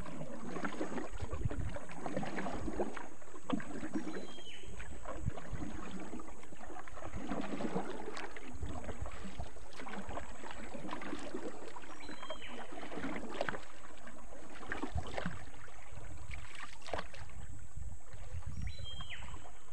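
Wooden paddle dipping and pulling through river water in repeated strokes, with water swishing along the wooden canoe's hull.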